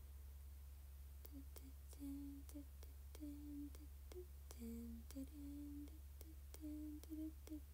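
A woman softly humming a tune in short, low notes, starting about a second in, with light clicks among the notes, over a steady low electrical hum.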